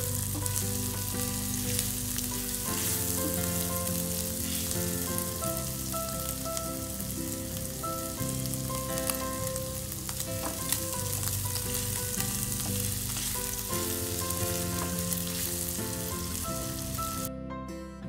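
Food sizzling in hot oil in a non-stick frying pan while being stir-fried with a spatula, with occasional scrapes; the sizzle cuts off about a second before the end. Soft background music with held notes plays underneath.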